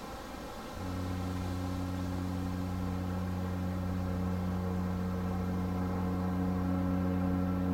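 The MSC Bellissima cruise ship's horn sounding one long, deep blast at a steady pitch as the ship departs port. It starts about a second in and stops abruptly near the end.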